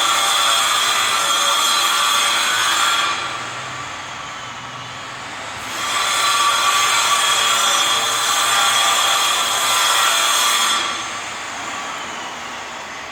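An electric power cutting tool runs in two long cuts of about three to five seconds each, its whine easing off between them and dying away near the end.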